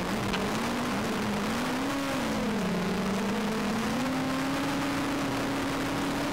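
Engine or motor hum whose pitch wavers up and down, then settles to a steady pitch about two-thirds of the way through.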